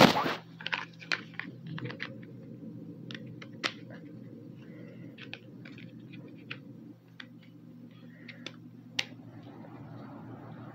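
Small plastic toy pieces handled and fitted together: scattered light clicks and taps, with a louder knock at the start and two sharper clicks later, over a low steady hum.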